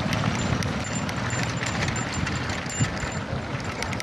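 Steady low rumble of travel along an unpaved murram road, with scattered light clicks and a single knock near the end.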